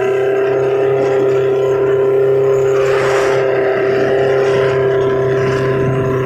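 Long-tail boat engine running at a steady high speed, its drone holding one pitch, with a rushing hiss of water alongside.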